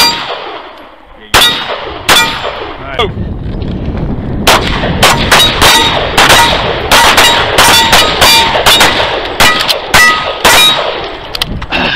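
Pistol shots at steel targets, the plates ringing with a short metallic ding after hits: a few spaced shots in the first three seconds, then a fast string of many shots, about two to three a second, lasting roughly six seconds.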